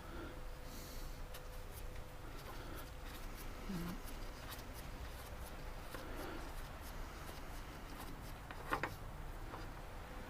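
Faint handling sounds: light rubbing and scattered small clicks as the outboard's dipstick is pulled and checked, with one sharper click near the end. A faint steady hum runs underneath.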